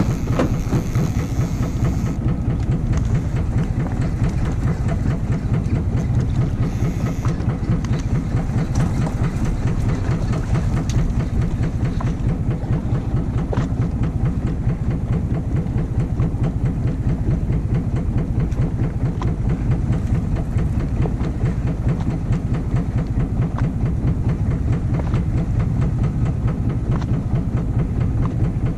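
Fishing boat's engine running steadily at a constant speed: a loud, even low-pitched drone with a fast pulsing beat.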